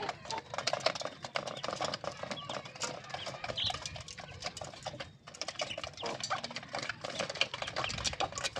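Chickens pecking at feed, a dense run of quick taps, with a few short calls among them.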